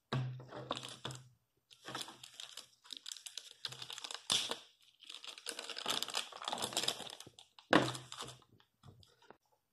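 Clear plastic sleeve around a drawing tablet crinkling as it is handled, in irregular bursts with short pauses.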